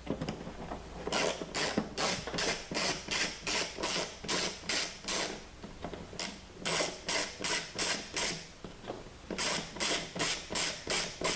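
Ratcheting screwdriver clicking at about three to four clicks a second as it backs screws out of a plastic tail-light housing. The clicking comes in three runs with short pauses between them, one for each screw.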